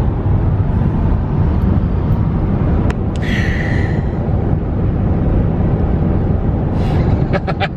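Steady road and engine noise inside the cab of a pickup truck moving at highway speed, a constant low rumble.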